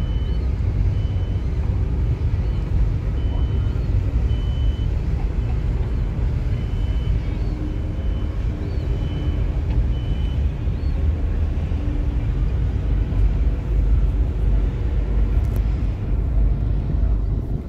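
Steady low rumble of a passenger ferry's engine under way, heard on board. A run of short high-pitched beeps or chirps repeats through the first ten seconds or so.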